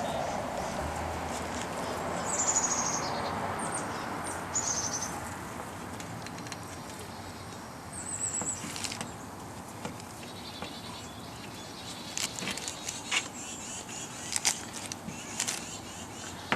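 Light clicking and crackling of juniper foliage and aluminium bonsai wire as a freshly wired branch is bent slowly by hand, mostly in the second half, over a steady background hiss. A few short, high falling chirps come in the first half.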